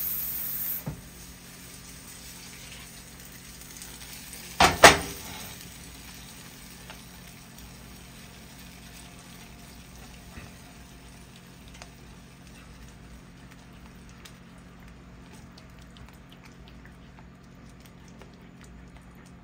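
Flour-and-water Spam gravy simmering in a frying pan, bubbling quietly while a silicone spatula stirs it. A brief loud burst of noise cuts in about five seconds in.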